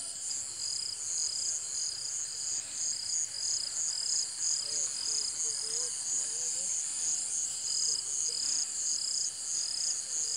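A chorus of crickets chirping in steady, evenly repeating pulses, several insects overlapping at different pitches. Faint wavering low sounds come in about halfway through.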